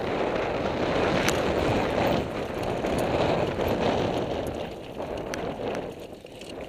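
Wind rushing over the microphone and mountain bike tyres rolling over loose rock and gravel on a fast downhill run, with scattered clicks and rattles from the bike. The rush eases about five seconds in.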